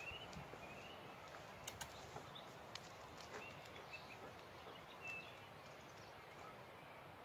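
Quiet outdoor background hiss, with a few faint high chirps and some light clicks scattered through it.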